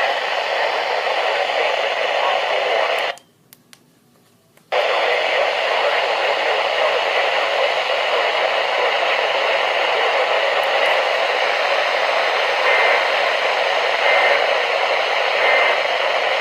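Steady radio static hiss from a receiver with no intelligible signal. It cuts out for about a second and a half a few seconds in, with a couple of clicks, then returns. Near the end come three faint short tones, about a second and a half apart.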